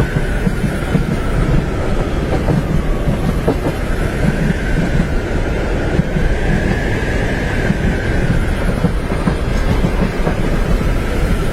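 Train carriage running along the track, heard from inside the compartment: a steady low rumble with the clickety-clack of the wheels over rail joints, and a faint whine that slowly rises and falls.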